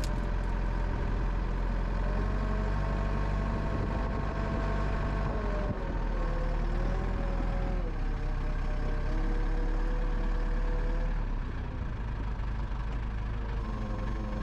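Portable sawmill running, likely while sawing an ash log: a steady engine hum with tones that step and drift in pitch. It drops a little in loudness about 11 seconds in.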